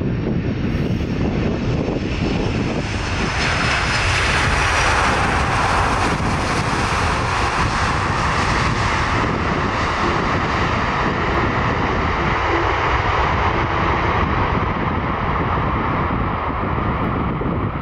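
Boeing 747-400F's four turbofan engines running loud on the landing rollout, a steady jet roar with a faint high whine at first. The roar swells about three seconds in and holds as the freighter rolls past.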